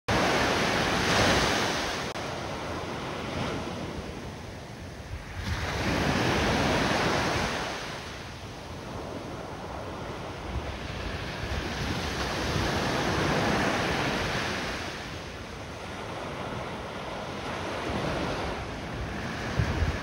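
Ocean surf breaking and washing up a sand beach, rising and falling in slow swells, loudest about a second in, around six to seven seconds and around thirteen seconds.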